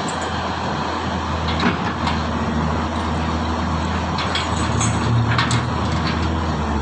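Komatsu hydraulic excavator's diesel engine running steadily, with a few sharp knocks about a second and a half in and again past the middle.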